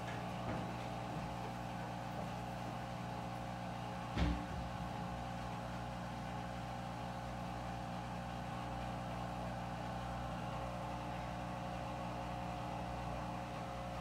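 Washing machine drain pump running with a steady hum, pumping out the last water before the spin cycle. A single short knock about four seconds in.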